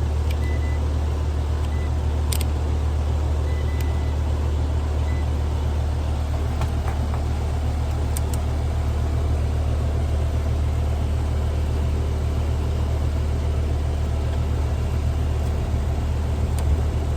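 Outdoor AC condenser unit with its fan running and a steady low hum from the compressor, which is locked up and not starting; the technician suspects the capacitor.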